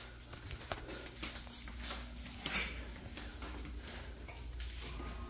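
Light footsteps and handling rustle from a person walking through rooms with a phone in hand: scattered soft taps and rustles over a faint low hum.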